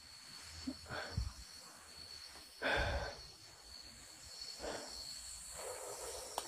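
A man's faint, audible breathing: a few slow breaths about two seconds apart, the strongest about three seconds in.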